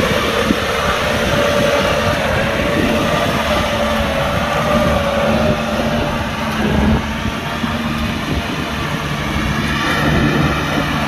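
Kubota tractor engine running steadily while plowing, a constant loud hum with a slightly wavering pitch.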